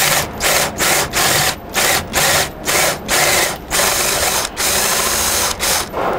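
Cordless drill driving a 1-inch spade bit into a wooden door jamb, run in short bursts of the trigger, about three a second, then in two longer runs before stopping near the end. The bit is boring the hole for the door's latch bolt to about half the jamb's thickness.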